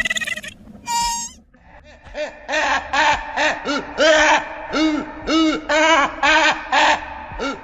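Imagined dinosaur call sound effect: a rapid run of short hooting calls, about three a second, each rising and falling in pitch, starting about two seconds in. Two shorter calls come before it.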